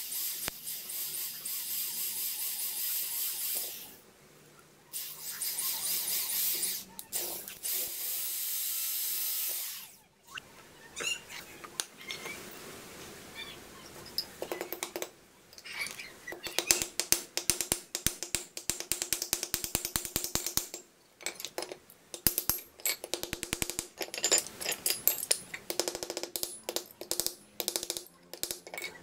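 Makita electric drill boring through a small steel part held in locking pliers, in two runs of a few seconds each. This is followed by a long series of quick, sharp hammer taps on metal that ring faintly.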